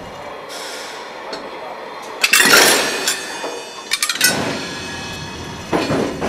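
Railway freight wagons and their steel bogies clanking and screeching on rails, in three loud bursts about two, four and six seconds in.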